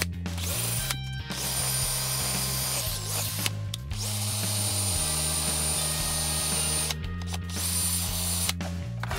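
Cordless drill spinning a felt buffing wheel. It runs in several bursts with a high whine and stops briefly about a second in, at around three and a half seconds, about seven seconds in and near the end.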